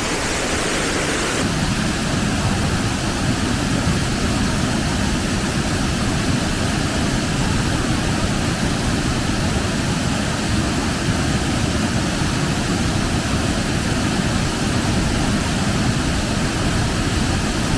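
Waterfall pouring into a rocky plunge pool: a steady, unbroken roar of falling water.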